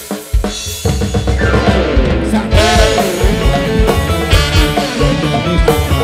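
Live tarling-dangdut band starting a number. A few separate drum hits open it, then the full band, with drum kit, bass and guitars, comes in about a second in, and a wavering melodic lead line rises above it.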